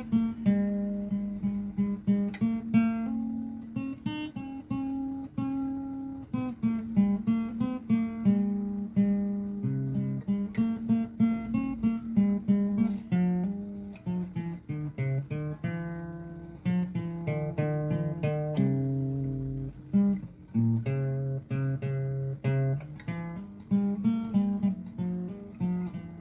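Background music: acoustic guitar picking a steady melody over a moving bass line.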